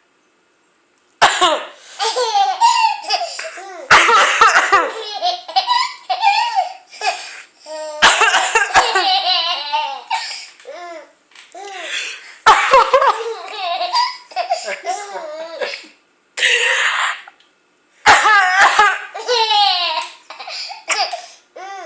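A woman coughs in about five short bouts, and after each one a baby breaks into laughing.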